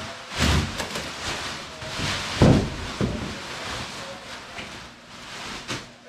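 Plastic packaging wrap rustling and crinkling as a new surfboard is unwrapped and handled, with a few heavy thumps of the board, the loudest about two and a half seconds in.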